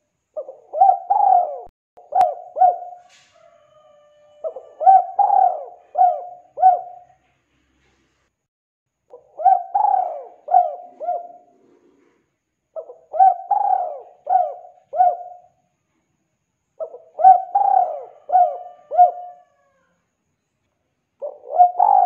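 Spotted dove singing: a phrase of several coos, repeated about every four seconds.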